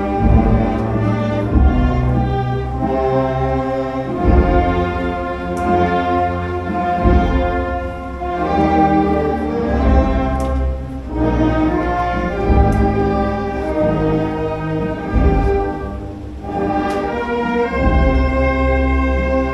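Orchestral music with brass and strings playing slow, held chords over a heavy bass line.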